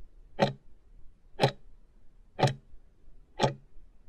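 Countdown-timer tick sound effect, a clock-like tick once every second, four ticks as the timer runs down its last seconds to zero.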